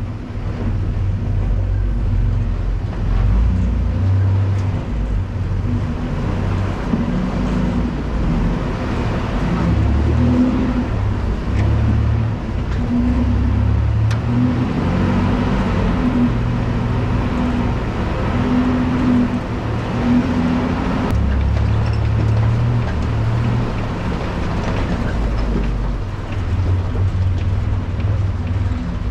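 Engine of an off-road Toyota truck running on the trail, its note shifting up and down, with a few faint knocks.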